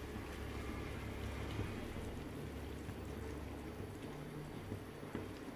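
Mushroom gravy simmering in a nonstick frying pan, with a wooden spatula stirring through the liquid; a low, steady bubbling and sloshing.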